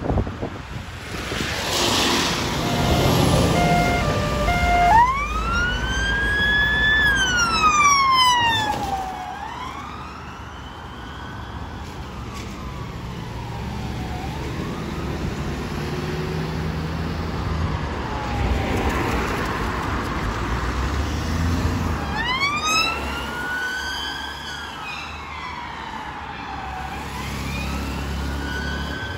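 UK police car sirens wailing in slow rising and falling sweeps as the vehicles drive past, over engine and road noise. A quick run of short stepped tones sounds a few seconds in, and the siren is loudest in the first third.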